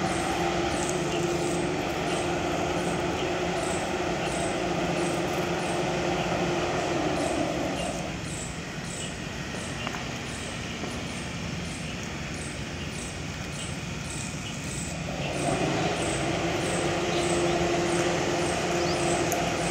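Steady machine hum with a low held drone, which drops away about eight seconds in and comes back about fifteen seconds in, over faint high ticking about twice a second.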